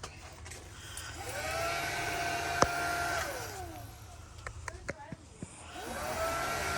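A small electric motor whining, twice: each time it spins up to a steady pitch, holds for a second or two, then winds down. There are a few sharp clicks, the loudest about midway between the two spin-ups.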